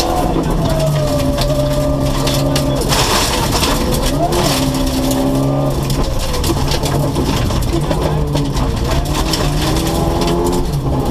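Rally car engine heard from inside the cabin, driven hard along a gravel forest road, with gravel noise and stone clatter under the car throughout. The engine note dips and rises quickly about four seconds in, and climbs steadily in the last few seconds as the car accelerates.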